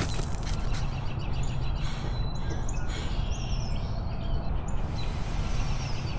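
Small birds chirping in short repeated calls over a steady low outdoor rumble.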